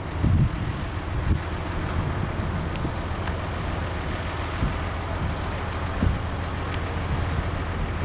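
Steady low rumble of distant engines, with wind buffeting the microphone and a few soft low thumps.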